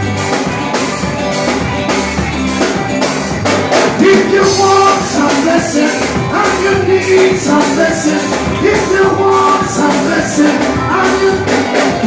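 Live band playing an upbeat instrumental intro: a steady beat with melodic instruments over it, fuller from about four seconds in.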